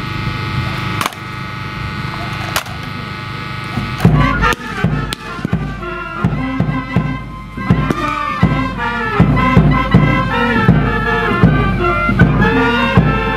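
A parade band playing: held notes with a couple of sharp knocks at first, then from about four seconds in a steady drum beat joins under a moving melody.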